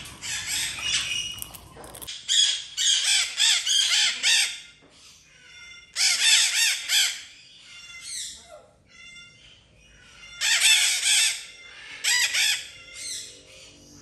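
Macaws giving harsh squawks, over and over, in clusters of a second or two with short pauses between.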